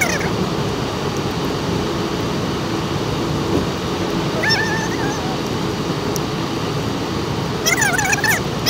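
Steady road and engine noise inside a moving car, with short high-pitched wavering whines about four and a half seconds in and again near the end.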